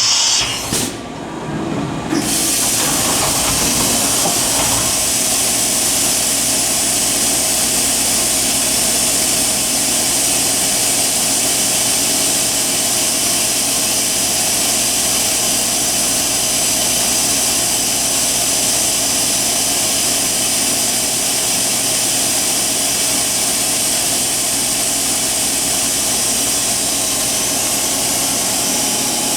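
Fadal 4020A CNC vertical machining center running a program: a steady hum and whine with a high hiss. It settles in about two seconds in after a brief dip and then holds steady.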